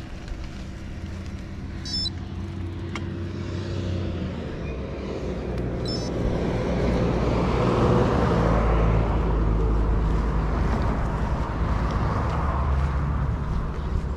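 A car driving by close on the road, its engine and tyre noise growing louder over the first half and staying loud through most of the rest.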